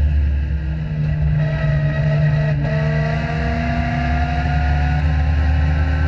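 Legend race car's engine running at high revs under racing load, heard from inside the cockpit. The pitch holds, breaks briefly about two and a half seconds in, then climbs slowly as the car accelerates.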